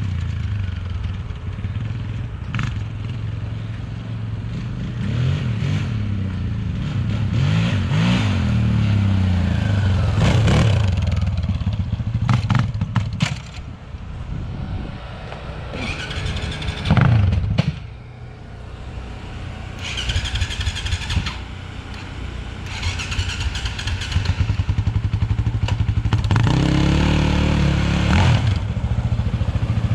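Polaris 525 ATV's single-cylinder four-stroke engine running at idle, with several brief throttle blips that rise and fall in pitch, the loudest about 17 seconds in, and some clatter.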